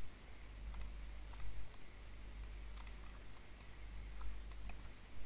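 A computer mouse clicking now and then, faint and at irregular intervals, over a low steady hum.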